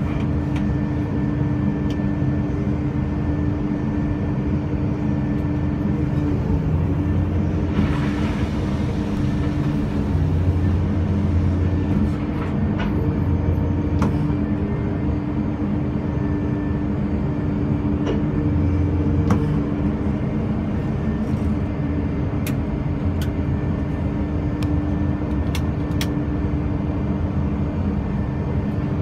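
Zoomlion crane's diesel engine running steadily at an unchanging speed, with a brief hiss about eight seconds in and a few light clicks near the end.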